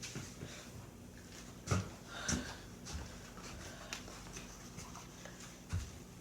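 Quiet room with a faint low hum and a few soft knocks and rustles, the clearest about two seconds in.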